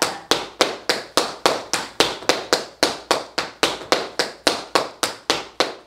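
Metal tap shoes striking a wooden floor in running shuffles: a quick, even train of sharp taps, about three a second.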